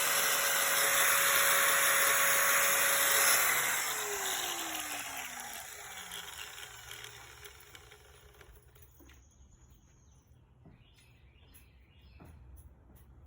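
Electric grinder running steadily, then switched off about three seconds in and spinning down, its whine falling in pitch and fading over several seconds. A few faint clicks follow near the end.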